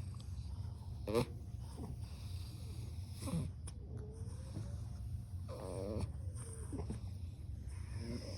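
Sleeping Ridgeback puppies giving a few short, pitched whimpers and squeaks, about a second, three and a half, and six seconds in, over a steady low hum.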